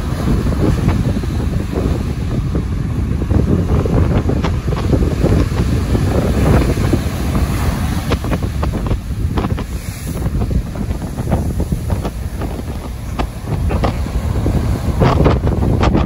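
Heavy wind buffeting the microphone over the rumble of large ocean waves breaking at the shoreline, the level rising and falling in irregular gusts.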